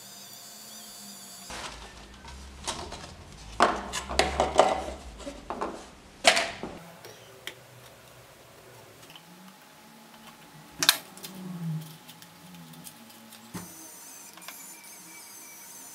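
A 3D pen's filament-feed motor whirring steadily, giving way after about a second and a half to several seconds of loud knocks and clatters, then one sharp click; the pen's whirring returns near the end.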